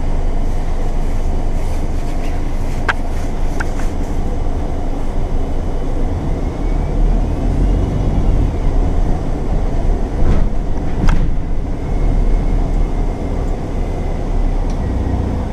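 Heard from inside a moving bus: its engine and the ride make a steady low rumble, with a few sharp rattles and clicks and a faint whine rising and falling midway.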